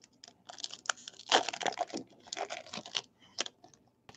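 Foil wrapper of a baseball card pack crinkling and tearing as the pack is opened, a dense run of crackles for about three seconds, loudest about a second and a half in.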